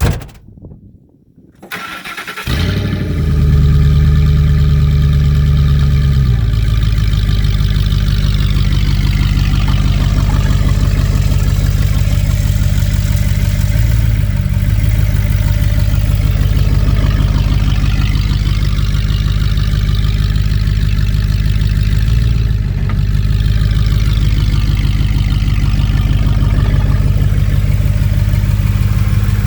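2006 Ford F-150's engine starting: a click, then a brief crank about two seconds in before it catches. It runs at a fast idle and settles to a lower, steady idle about six seconds in.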